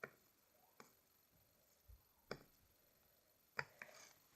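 Near silence broken by a few faint, separate clicks, about five in all, from slowly stirring the slime mixture with an utensil in a bowl.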